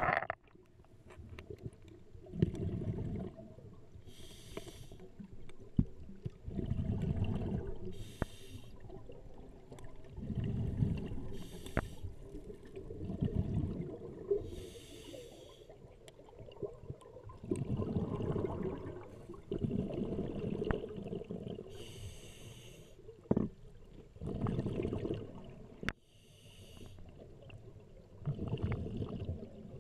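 Scuba diver breathing through an open-circuit regulator underwater, in a steady cycle about every four seconds. Each breath is a short hiss of inhalation followed by a longer low rumble of exhaled bubbles. A few sharp clicks cut in.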